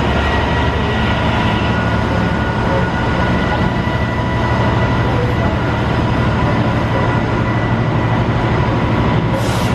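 Class 66 diesel-electric locomotive's EMD two-stroke V12 running as it moves slowly past: a steady low drone with a steady whine above it. A brief hiss comes near the end.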